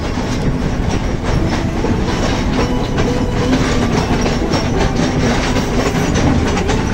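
Passenger train running on the track, a steady rumble with the clatter of the carriage wheels over the rails.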